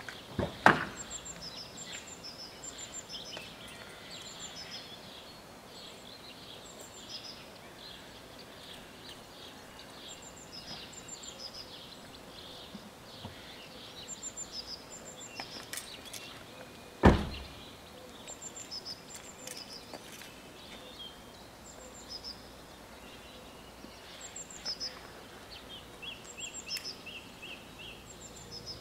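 Birds chirping and singing in short repeated high calls, broken by two loud sharp knocks, one just after the start and a louder one about seventeen seconds in.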